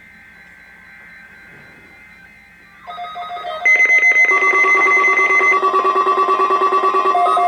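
Weather radio receivers going into alert: several electronic alarm tones start about three seconds in, turn loud a second later and keep up a fast pulsing beep.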